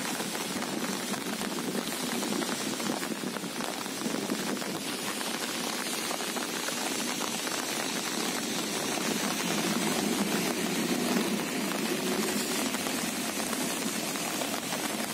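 Steady rain falling on wet paving and open water, an even hiss made of many small drop ticks.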